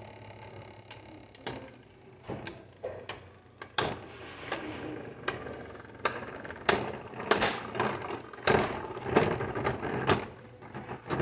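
Irregular sharp plastic clicks and clacks from Beyblade spinning tops and their parts, coming every half second or so and bunching more closely in the second half.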